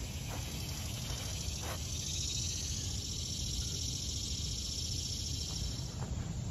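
A steady high-pitched insect chorus that comes up about two seconds in and stops near the end, over a constant low rumble.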